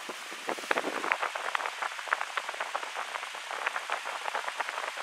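Senville mini-split outdoor unit running close up: a steady hiss from its fan, with a rapid, irregular patter of small clicks over it.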